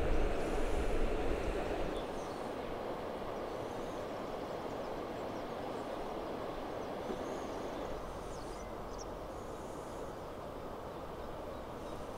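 Steady rushing outdoor noise with no distinct events. It is louder, with a deep rumble, for the first two seconds, then settles to an even lower level.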